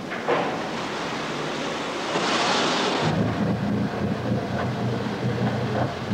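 Wind and surf noise with a louder hiss about two seconds in. From about three seconds in, a ship's engine drones steadily underneath.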